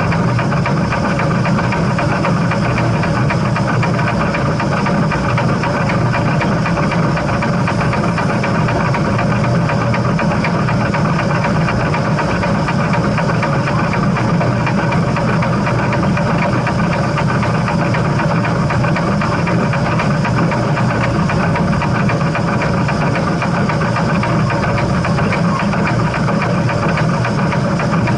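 Steam train running: a loud, unbroken mechanical rumble with several steady tones layered over it and no clear beat.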